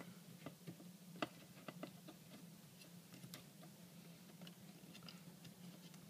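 Near silence: faint scattered clicks and taps of a 2.5-inch SSD being handled and slid into a Mac mini's drive bay, over a low steady hum. The clearest click comes about a second in.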